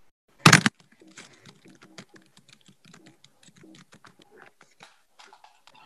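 A loud bump against the recording device, then an irregular run of quick clicks and taps close to the microphone as hands work the device.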